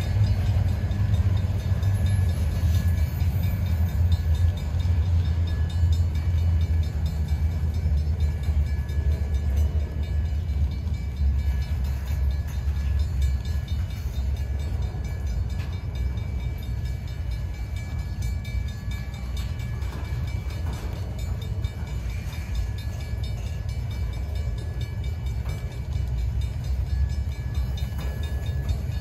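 Freight train cars rolling past on the rails, a steady low rumble.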